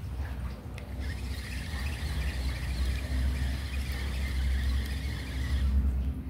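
A steady low mechanical hum, joined about a second in by a fainter high chattering hiss that stops shortly before the end.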